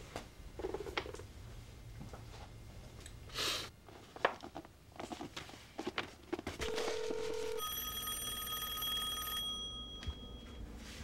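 A black rotary desk telephone's bell ringing for about two seconds and fading out near the end. Before it come scattered clicks and paper handling as a number is dialled, then a brief steady tone of about a second.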